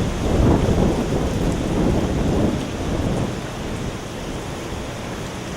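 Hurricane feeder-band wind gusting hard against the microphone in heavy rain; the gusts ease about two and a half seconds in, leaving steady rain.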